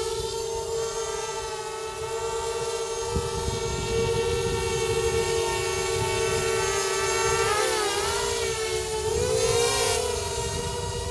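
Blackout-clone quadcopter's motors and propellers whining in flight, a steady multi-toned buzz. Its pitch wavers and dips about eight seconds in, then swells and wobbles again near ten seconds as the throttle changes.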